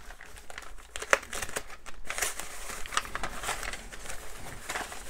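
Foam packing wrap rustling and crinkling as it is untied and peeled off a plastic model kit hull, with a sharp tap about a second in.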